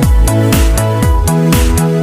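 Electronic dance music with a steady kick-drum beat about twice a second and bright hi-hat hits over sustained synth tones.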